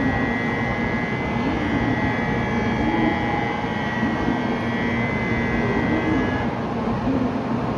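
Steady mechanical hum and high whine of a 500-series Shinkansen train at the station platform, with a wavering low tone throughout. A steady high tone cuts off about six and a half seconds in.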